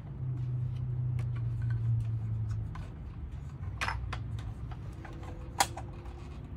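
Hard plastic vintage Star Wars toy spaceship handled and turned over in the hands: rubbing and scattered light clicks of plastic parts, with one sharper click about five and a half seconds in.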